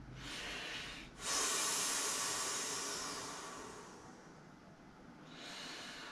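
A person blowing up an inflatable airplane by mouth. A breath is drawn in, then a long blow of air goes into the valve, starting sharply about a second in and fading over two to three seconds, and near the end another breath is drawn in.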